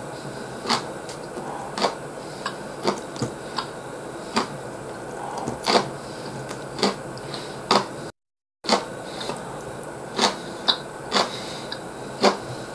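Eating sounds: sharp, irregular clicks and crunches, roughly one a second, from chewing crisp pickled vegetables and chopsticks touching a china plate. The sound cuts out briefly about eight seconds in.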